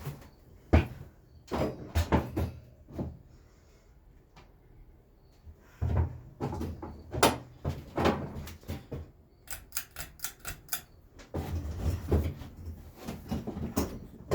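Irregular knocks, bumps and clicks of something being handled, with a quick run of about six sharp clicks near the middle.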